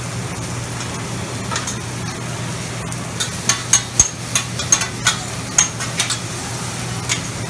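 Metal spatulas clacking and scraping on a flat-top griddle as food is stirred and chopped. Sharp irregular knocks come about two or three a second from partway through, over food sizzling and a steady low hum.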